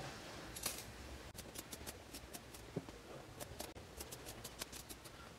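Scissors snipping through layered fabric, a quick series of short, faint snips as an opening is cut out.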